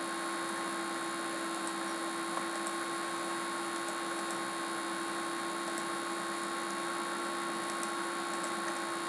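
Steady background hiss with a low electrical hum: room tone with no speech.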